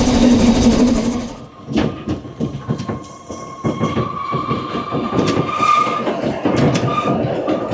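Ffestiniog Railway narrow-gauge train running on the line: wheels clicking and clacking irregularly over the track, with a faint thin squeal from the wheels. It opens with about a second of loud, steady running noise that stops abruptly.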